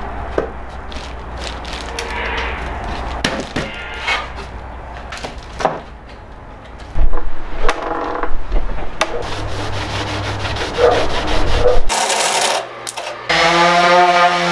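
Cedar boards being handled and rubbed in the shop, with scattered knocks and scraping. Near the end an electric palm sander starts up and runs with a steady motor hum.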